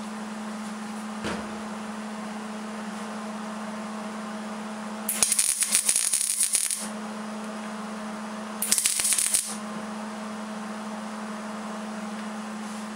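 MIG welder plug-welding a steel patch panel into a truck door through a drilled hole: two crackling bursts of arc, one of nearly two seconds about five seconds in and a shorter one a little before the nine-second mark, over a steady electrical hum.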